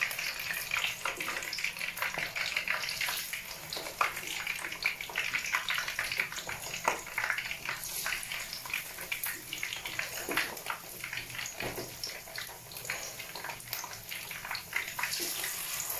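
Cornstarch-coated cream dory fish fillets frying in hot oil in a pan: a steady sizzle with dense crackling and popping.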